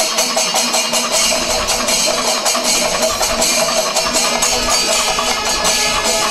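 Loud, unbroken festival percussion, drums beaten in rapid strokes, with a crowd all around.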